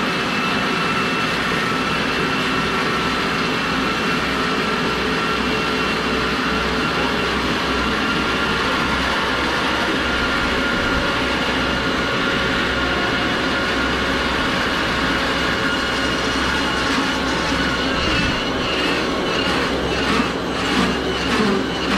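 Motor-driven belt running steadily under a LEGO plane, a mechanical rumble with a thin whine. Near the end a quick rhythmic rattle builds as the model starts to shake.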